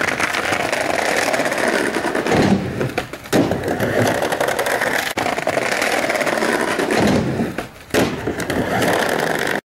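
Skateboard wheels rolling over brick pavers and ramp surfaces. The sound drops out twice, briefly around three seconds in and longer near the end, while the board is in the air for a short nosegrab and then a short stinkbug grab, and returns abruptly with each landing.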